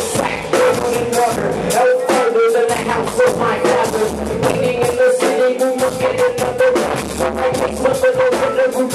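Live band playing loud, with drums hitting steadily, electric guitar and a steady held note underneath. A man's vocals sung or rapped into a microphone run through the mix.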